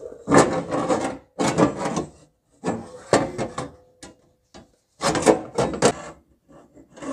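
Replacement sheet-metal inner quarter-panel structure scraping and knocking against the Chevy Suburban's body as it is worked up into place, in four rough bursts of about a second each with small knocks between them.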